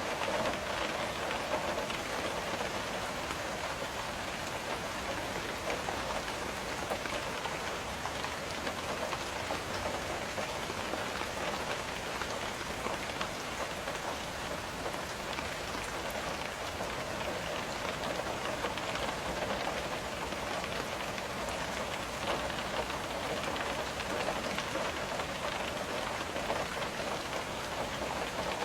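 Steady rain falling and striking window glass, an even, unbroken hiss of drops with no change in strength.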